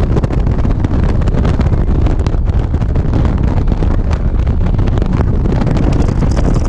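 Loud, steady wind buffeting the microphone of a moving motorcycle, with the bike's engine and road noise underneath.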